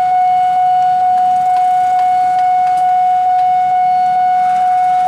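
Railway level-crossing warning alarm sounding as a train approaches: one loud, steady electronic tone, with a faint tick about twice a second.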